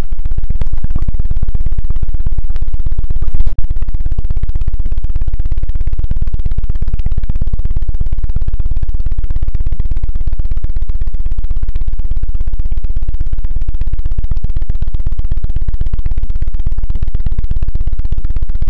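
Fast ASMR knocking on a microphone: deep, muffled thuds repeated many times a second in a steady, even rhythm, briefly faltering about three and a half seconds in.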